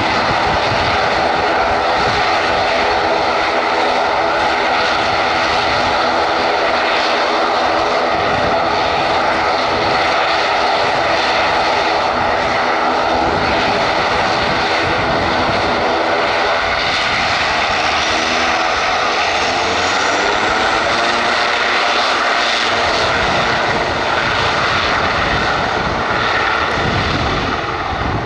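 Airliner engines running loud and steady, with a stack of pitched engine tones over a rushing noise. About two-thirds of the way through, the tones slide down in pitch.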